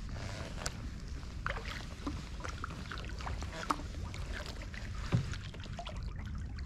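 Paddle strokes in calm floodwater: the blade dipping with water dripping and plopping off it, over a steady low rumble. There are two sharper knocks, one a little past halfway and a louder one about five seconds in.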